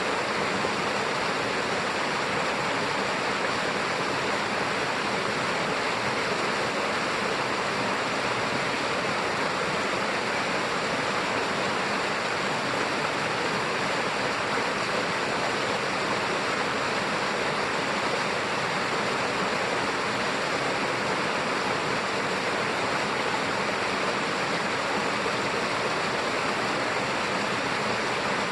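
Seneca Creek's water rushing over rocks: a steady, even rush with no change throughout.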